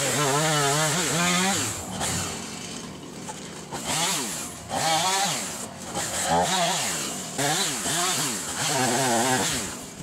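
Husqvarna chainsaw revving up and down in quick bursts while cutting branches from a fallen pecan tree. The pitch swings rapidly, with short lulls about two seconds in and again around six seconds.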